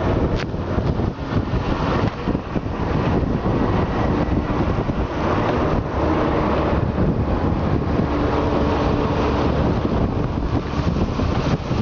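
Wind buffeting the microphone of a Honda Gold Wing touring motorcycle riding at road speed, with a steady low hum of the bike's flat-six engine and road noise underneath.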